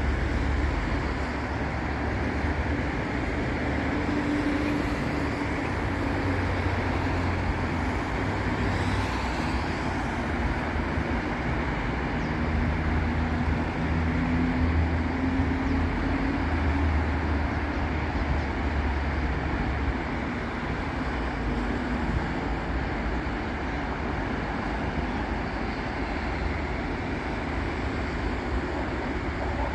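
Steady road traffic of cars and buses passing on a city avenue: continuous tyre and engine noise with a low engine rumble, vehicles swelling and fading past one after another.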